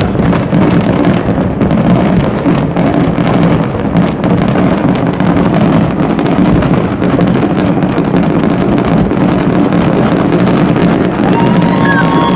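Fireworks display: a dense, continuous barrage of bangs and crackles. Near the end a steady horn-like tone joins in, with a short whistling glide.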